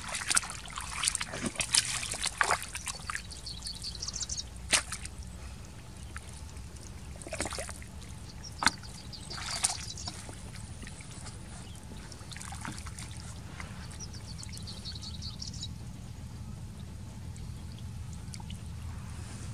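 Hands splashing and squelching in shallow muddy water while groping for fish, in short clusters of splashes and trickling water. A high trill sounds twice in the background.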